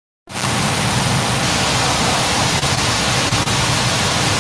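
An audio feed cutting in abruptly from dead silence about a third of a second in, to a loud, steady hiss of static.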